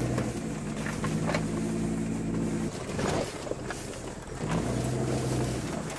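Second-generation Dodge Ram pickup's engine pulling steadily off-road, heard from inside the cab. The engine note drops away about two and a half seconds in and comes back strongly about four and a half seconds in.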